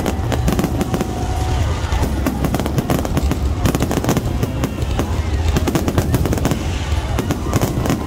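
Fireworks display: a dense, rapid run of bangs and crackles over a steady low rumble.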